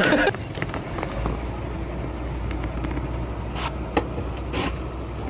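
Outdoor background noise: a steady low hum of distant road traffic, with a few faint knocks. A brief loud noise sounds at the very start.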